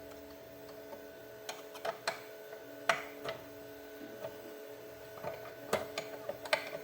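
Scattered light clicks and taps of a hand tool and screws against the blade guard of a Bosch CM10GD miter saw as the guard's screws are backed out. The clicks are irregular, a few per second at most, over a faint steady hum.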